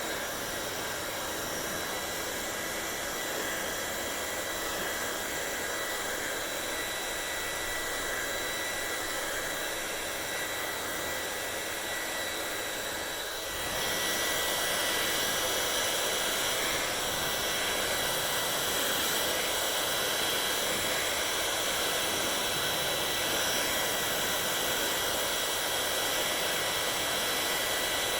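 Hair dryer running: a steady rush of air with a thin whine. About halfway through it turns suddenly louder and its whine changes pitch.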